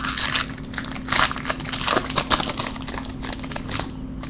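Trading-card pack wrapper crinkling and crackling as it is pulled open and the cards slid out. The sound is loudest between about one and three seconds in and dies down near the end.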